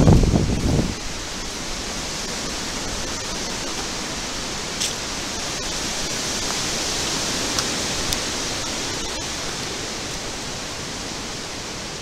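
Steady rushing of wind through woodland trees, with a low rumble of wind and handling on the microphone in the first second.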